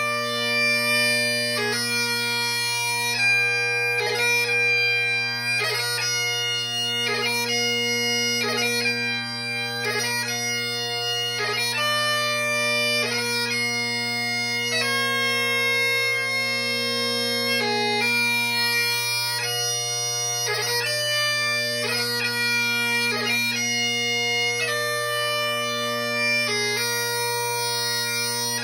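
Great Highland bagpipe playing a slow piobaireachd: long held chanter melody notes, separated by quick grace-note embellishments, over the steady drones.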